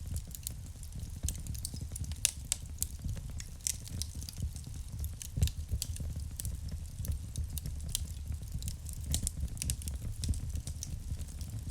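Wood fire burning in a fireplace: a dense, irregular run of sharp crackles and pops over a low rumble of flames, with a couple of louder pops about two and five seconds in.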